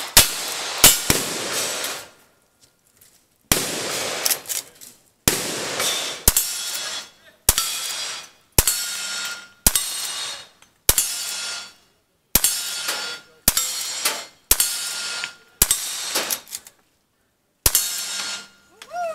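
Gunfire at a cowboy action shooting stage: the last few revolver shots in quick succession, then after a short pause a lever-action rifle fired shot after shot, about one every second or so. Each shot is a sharp crack with an echoing tail, and some are followed by the faint ring of a struck steel target.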